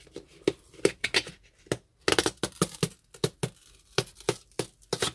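Cardboard packaging of a toy box pulled open by hand along its pull tab: a run of irregular crackles and tearing rips as the printed outer layer peels away.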